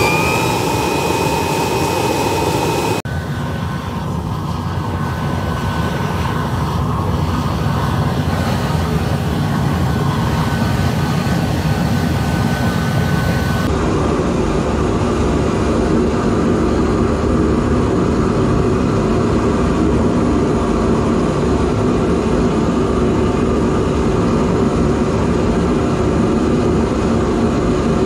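Gas burner firing, a loud, steady, jet-like roar of the flame. A whistling tone rises in pitch at the start and holds. The sound changes abruptly about three seconds in and again about halfway through.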